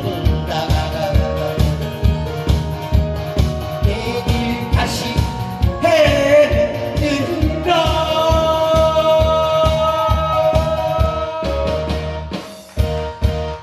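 Male singer singing live into a microphone over loud amplified backing music with a steady beat. He holds a long note in the second half, and the music winds down near the end.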